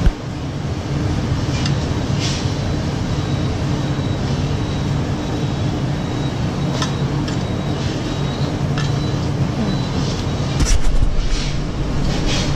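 Steady mechanical drone of a running machine: a low hum with a faint high whine over it and a few light clicks, swelling into a louder rumble briefly near the end.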